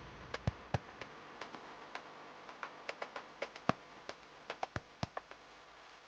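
Faint, irregular sharp clicks and crackles, about twenty scattered over a low background hiss.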